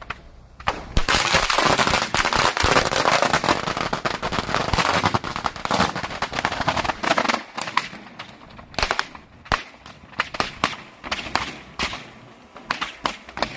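A string of firecrackers going off: a dense, rapid crackle of bangs for several seconds, then thinning to scattered pops.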